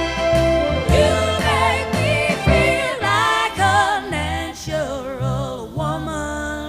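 A pop song with a singer and a steady bass beat.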